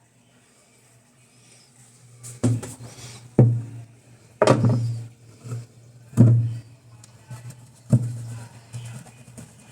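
Five sharp knocks with clatter between them, from plastic washing-machine parts such as the agitator being handled and fitted, over a low steady hum.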